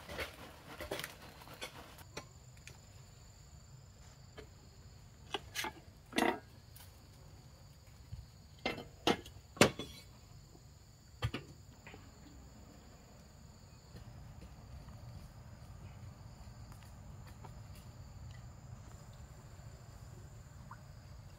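Insects chirring in two steady high tones, with a scattering of sharp knocks and clicks, about eight of them, in the first half.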